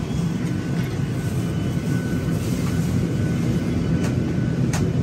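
Steady low rumble of the cabin air-conditioning in a parked Boeing 737-800, with two short, sharp clicks near the end.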